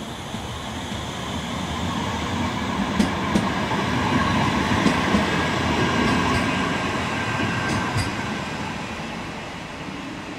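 Manchester Metrolink Bombardier M5000 tram running past on its rails and away down the line: a steady rolling rumble that swells and then fades, with a few sharp clicks around the middle.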